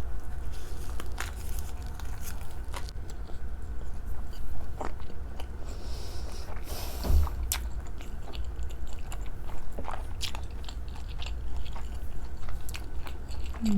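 Close-miked eating of sushi cake and salmon sashimi: biting and chewing with scattered crunches and mouth clicks, one louder crunch about seven seconds in, over a steady low hum.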